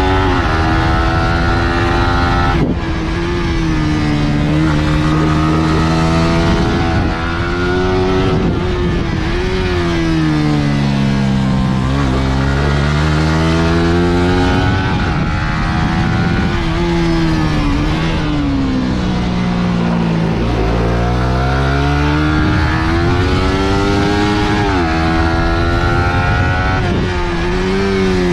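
Suzuki GSX-R150's single-cylinder engine run hard around a track. The pitch repeatedly climbs under acceleration and swoops down on braking and downshifts, several times over, with a sudden drop at a gear change about three seconds in. A constant low rushing noise lies underneath.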